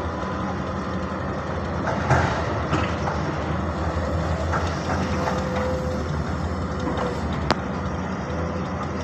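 Sumitomo excavator's diesel engine running steadily under load as it digs and swings, with a few short knocks and one sharp click from the working machine.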